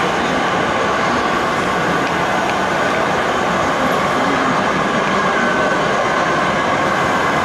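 Steady, dense background noise of a large exhibition hall, an even rush with a faint steady tone in it and no distinct events.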